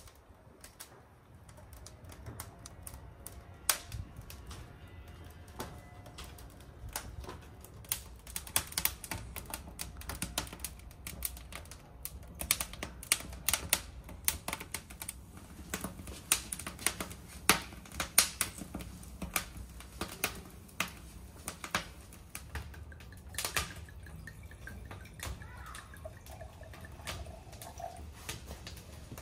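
Split firewood burning in a brick fireplace, crackling with irregular sharp pops and snaps over a low steady rush; the pops come sparse at first and grow busier after several seconds.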